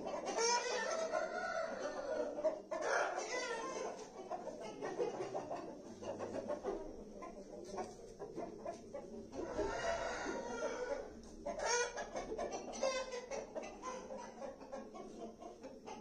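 Aseel chickens clucking and calling, with a rooster crowing. The longer calls come about half a second in and again around ten seconds in, with shorter clucks between.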